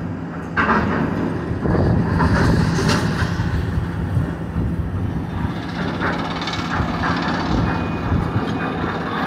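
Tracked demolition excavator's diesel engine running steadily under load as its grapple works through the rubble, with scattered crunching and clattering of metal and concrete debris.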